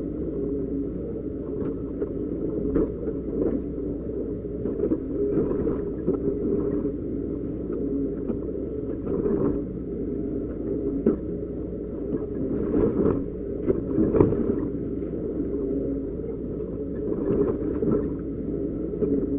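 Doosan DX140 crawler excavator's diesel engine running steadily under hydraulic load, heard from the cab, as the bucket digs into and dumps rock and soil. Sharp knocks and clatter of stones stand out several times, loudest a little past the middle.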